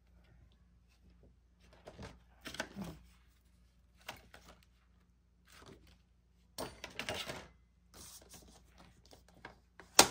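Laminated plastic sheets and clear cut-off laminate strips rustling and crinkling as they are handled on a paper trimmer, in several short irregular bursts, with one sharp loud click near the end.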